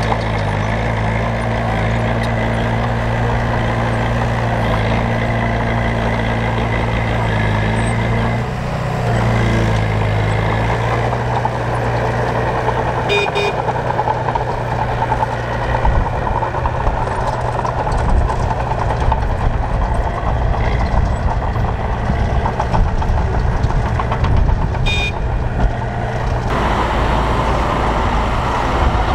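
Heavy diesel earthmoving machinery running at work: a steady low engine hum that turns rougher and noisier about ten seconds in. Two brief high-pitched tones sound, one about halfway and one near the end.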